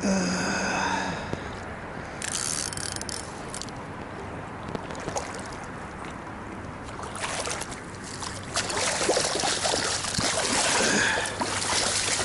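Hooked fish splashing at the water's surface as it is reeled in close to the bank, with louder, denser splashing and rustling of bank grass over the last few seconds as it is drawn ashore.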